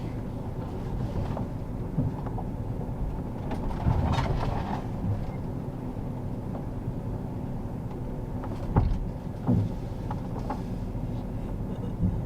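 A vehicle engine running steadily, with a few short knocks and bumps over it.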